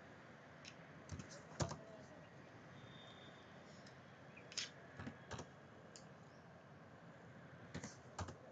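A few separate keystrokes on a computer keyboard, typed in small groups, over faint room noise. The loudest keystroke comes about one and a half seconds in, and there is another pair near the end.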